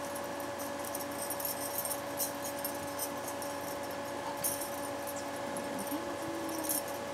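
Rustling and light clicking of a baby shirt being pulled and tugged onto a reborn doll, over a steady hum. A brief whine rises and then holds about six seconds in.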